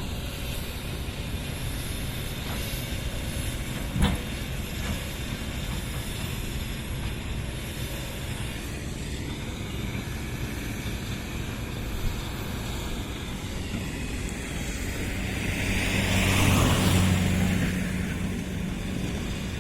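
Excavator's diesel engine running steadily, with a single sharp clank about four seconds in. Near the end a louder engine sound swells up and fades away over a couple of seconds.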